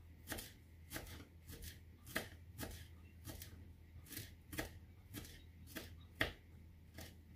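Kitchen knife chopping fresh dill on a wooden cutting board: a steady run of light taps, about two to three a second.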